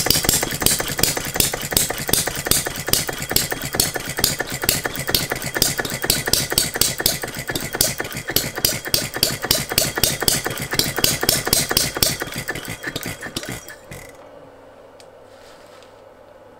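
Philip Duclos Odds n Ends model hit-and-miss engine running with a fast, regular firing beat. Its piston is sealed with a Viton O-ring and its governor has been restricted, and the owner says it still has issues. The beat fades and stops about 14 seconds in.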